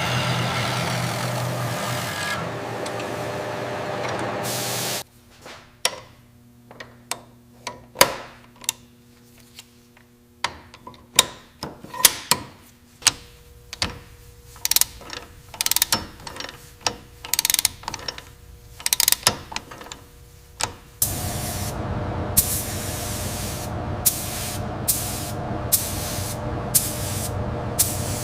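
Workshop tool sounds. A machine runs with a steady hum for about five seconds and stops abruptly. Then comes a long run of sharp metallic clicks and knocks, and from about two-thirds of the way through a steady hiss that breaks off in short pauses near the end.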